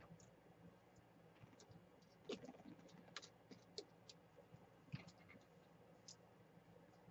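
Near silence: room tone with a few faint, scattered small clicks and taps.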